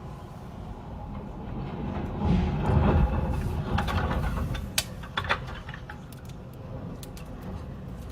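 Storm-force wind gusting, rumbling on the microphone and swelling to a strong gust a few seconds in, with a couple of sharp knocks or rattles after it.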